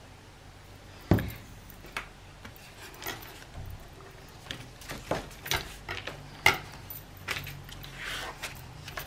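Craft materials handled on a tabletop as a piece of paper is glued down: a series of light knocks and taps, the sharpest about a second in and the loudest about two-thirds through, with paper rubbing near the end.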